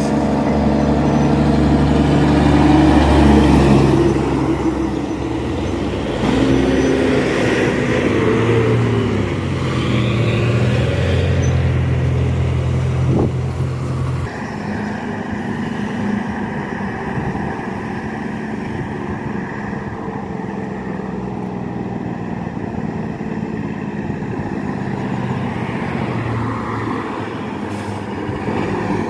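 Road traffic passing: car and truck engines running, their pitch rising and falling as vehicles go by and change speed. The sound changes abruptly about halfway through, then a heavy truck engine comes closer toward the end.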